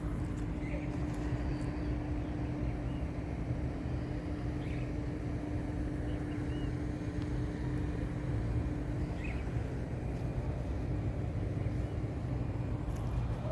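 Steady low outdoor rumble with a steady hum that fades about two-thirds of the way through, and faint short bird chirps about four times.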